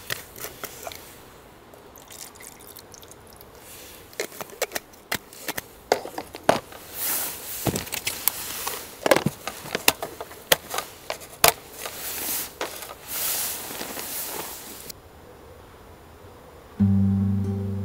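Barocook flameless cooker's water-activated heat pack reacting under the food tray: irregular crackles and pops with bursts of hissing steam. It stops about 15 seconds in, and strummed guitar music starts near the end.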